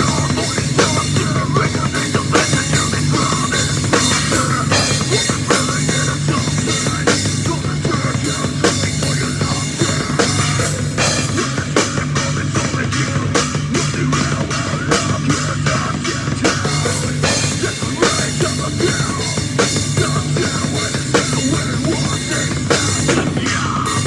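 Rock band playing at a sound check, with a drum kit played hard and fast, driving kick drum and cymbals, over distorted guitar and bass.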